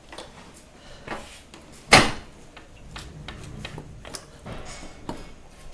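Scooter being moved forward by hand, with one loud sharp clunk about two seconds in and lighter knocks and rattles around it.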